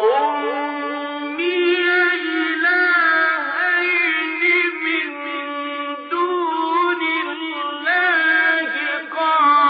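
Male reciter chanting the Quran in the ornamented mujawwad style, holding long notes that bend and waver up and down, with brief breaks between phrases.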